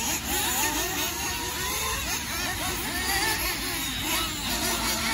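Several nitro RC cars racing, their small glow-fuel engines revving up and down over one another in a constant shifting buzz.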